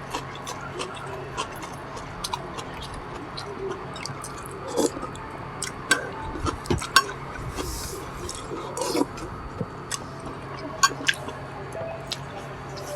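Close-up eating sounds: chewing and wet smacking, with scattered short clicks throughout.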